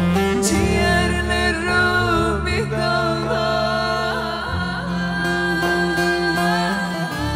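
A live band playing Black Sea (Karadeniz) folk music: a bağlama and a singing voice over a bass line, all steady and without a break.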